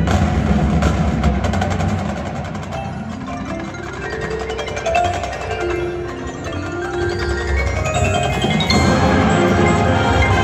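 Live high school marching band playing its field show. The full band drops back to a quieter passage carried by melodic mallet percussion, marimba and bells from the front ensemble, then swells back to full volume near the end.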